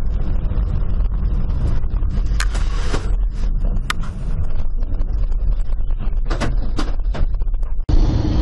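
Road noise inside a car driving on a wet road: a steady low rumble, with a few sharp clicks between about two and seven seconds in. Near the end it cuts abruptly to a different car's steady road drone with a hum.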